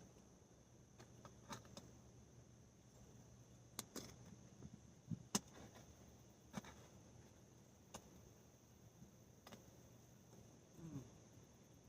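Faint insects with a steady high-pitched drone, under scattered soft clicks and knocks of hands digging sweet potatoes out of garden soil. The loudest knocks come a little after five seconds in.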